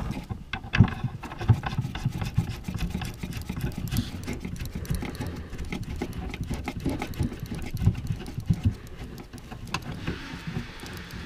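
Hands fastening a Peugeot 307 tail light's fixing screws from inside the boot: irregular clicks and knocks over a low rumble, with a rustling hiss near the end.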